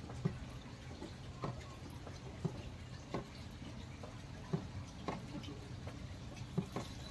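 Irregular light thumps and taps of bare feet on a floor as a child practises karate moves, roughly one every half second to a second, over a steady low hum.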